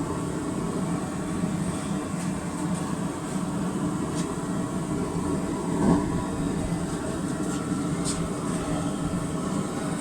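Steady roar of a blacksmith's forge running, with a few faint light clicks of metal being handled.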